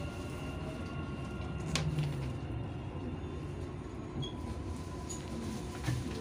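Dubai Metro train heard from inside the front car: a low rolling rumble with a thin, steady electric whine that fades about halfway through as the train slows at a station. There is a sharp click about two seconds in.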